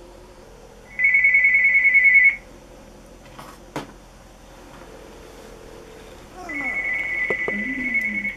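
Telephone ringing: two trilling rings about a second and a half long, the second quieter than the first, with a single click between them.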